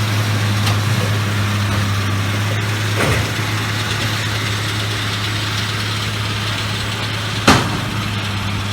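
A vehicle engine running steadily with a low, even hum. There is a short knock about three seconds in and a sharper, louder click near the end.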